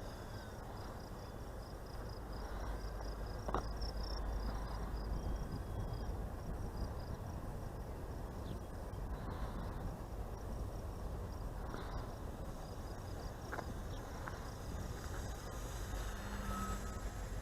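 An insect chirping in a rapid, even pulse, over a steady low rumble with a few faint clicks.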